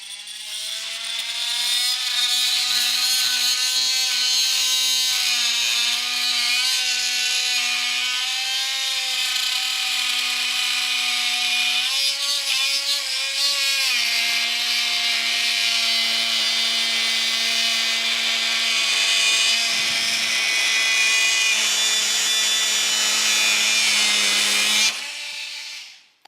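Milwaukee M12 cordless oscillating multi-tool running steadily, its blade plunge-cutting into hard, kiln-dried oak. The pitch wavers briefly about halfway through as the blade meets the wood, and the tool stops a second before the end.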